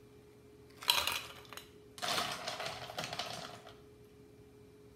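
Ice cubes clattering as they are tipped from a scoop into a tumbler: a short clatter about a second in, then a longer rattle from about two seconds.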